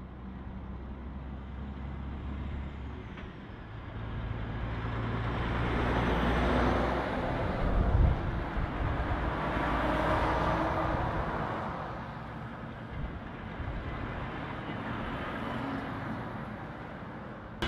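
Diesel semi-trailer trucks, among them a DAF XF105 and a Volvo, driving past one after another: a low engine hum, then engine and tyre noise swelling and fading as each goes by, with a sharp thump about eight seconds in.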